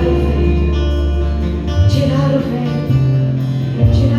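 Live church worship band playing with no words: sustained bass and keyboard chords under guitar, with cymbal strokes about two seconds in and near the end.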